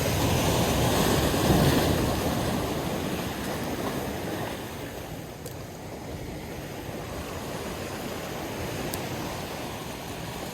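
Rushing noise of wind and water, loudest about a second and a half in, then easing to a lower steady rush.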